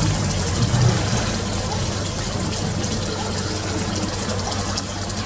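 Steady rushing of running water over a low, even motor hum.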